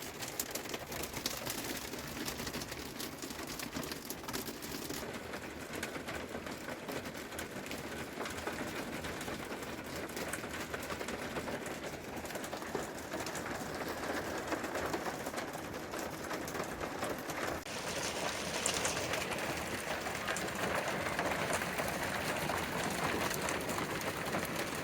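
Hail mixed with sleet falling, a dense stream of small ticking hits that grows a little louder in the last several seconds.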